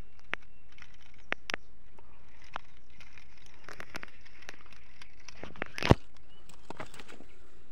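Footsteps on loose rocks and dry grass: irregular crunches, clicks and the crackle of stones shifting underfoot, with one sharp knock about six seconds in.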